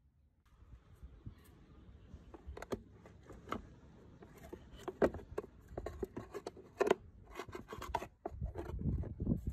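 Handling noises of a small air compressor and its wiring being fitted into a motorbike's plastic under-seat compartment: irregular clicks, knocks and scrapes of plastic, with a few sharper knocks and a low rubbing rumble near the end.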